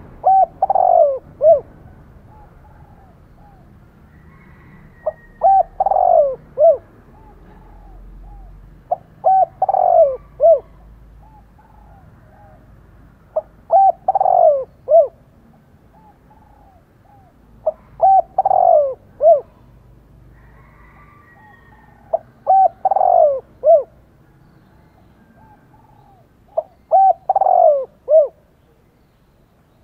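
A caged male spotted dove cooing. It gives a short phrase of three or four low coos about every four to five seconds, seven phrases in all, in the combative cooing that keepers use to rouse rival males.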